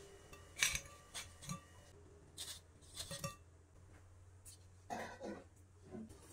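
Fried cassava cheese balls tipped into a ceramic bowl, with a string of light knocks and clinks, the sharpest about half a second in. A ceramic plate is set down about five seconds in, with a short clatter.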